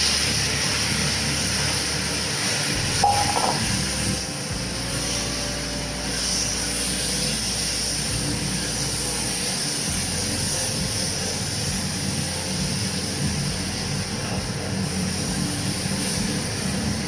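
Small pieces of chicken sizzling steadily in hot oil in a pan as they are stir-fried, with one sharp knock about three seconds in.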